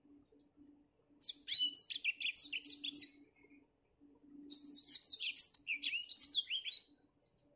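Black-throated canary singing two fast twittering phrases of quick, sliding high notes. The first starts about a second in and the second about four seconds in, with a short pause between them.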